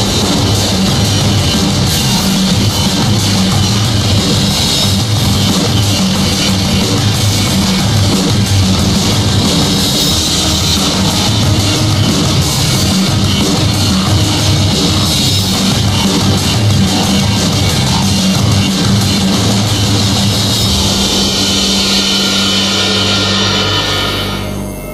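Loud rock music with drums, fading down near the end.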